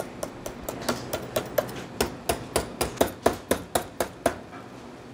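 Rapid, even strikes of a hand tool on a hardened baked salt crust, cracking it open. The blows come at about four a second, grow louder about two seconds in and stop near the end.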